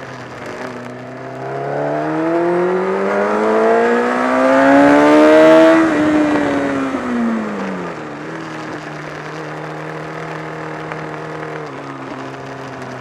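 Honda CBR1000RR inline-four engine running: its revs climb steadily for about four seconds, drop back over about two, then hold steady. The owner reports a flapping noise from around the engine and a loss of torque on this bike.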